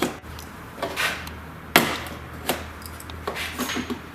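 Plastic retaining clips being prised out of a Toyota Prado 150's stock plastic front bar: a handful of sharp clicks and knocks, the loudest a little under two seconds in.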